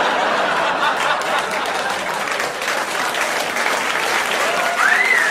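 A comedy-club audience applauding after a stand-up punchline. One voice in the crowd gives a whoop that rises and falls near the end.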